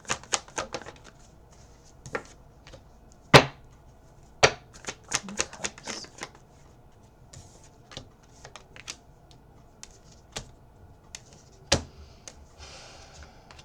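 Tarot cards being handled on a table: a quick run of clicks in the first second, then a few sharp single snaps spread out, and a short rustle near the end.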